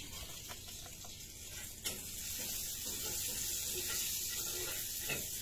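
Bare hand mixing small fish with a wet red chili paste on a banana leaf: sticky, squelching hand-mixing heard as a steady hiss with scattered small clicks, one sharper click about two seconds in.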